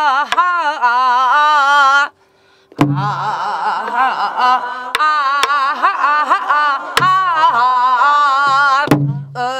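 Namdo minyo (Korean southern folk song) sung by a woman with a wide, heavy vibrato on a drawn-out "a-ha" melisma, accompanied by a buk barrel drum struck with a stick. The voice breaks off about two seconds in, then resumes with other voices joining, with a drum stroke every second or two.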